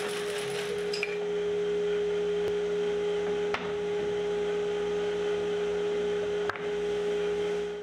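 A bandsaw finishes a resaw cut through a board of iroko hardwood: the cutting noise stops about a second in. The saw then runs on without load as a steady hum, and three short knocks come as the sawn boards are handled.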